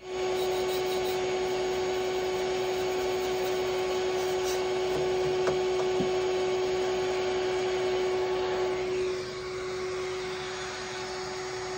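Vacuum cleaner running with its nozzle and brush scrubbing dust off a refrigeration condenser coil: a steady hum under a rough rushing and scraping noise. It gets somewhat quieter about nine seconds in.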